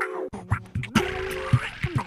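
Background music: held synth-like notes that bend in pitch, over drum hits.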